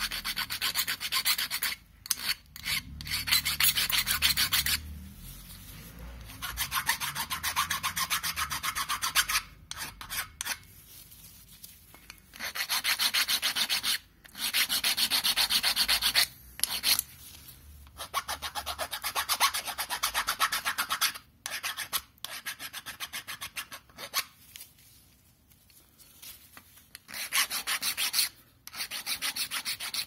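Small hand file scraping back and forth along the edges of a new brake pad's steel backing plate, filing off paint so the edges sit smooth. It comes in runs of quick strokes broken by short pauses.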